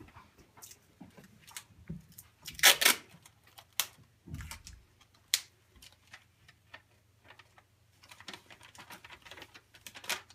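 A paper sewing pattern being folded and pressed flat on a wooden table: scattered crinkles, clicks and taps of the paper, with a louder rasp lasting under half a second about three seconds in.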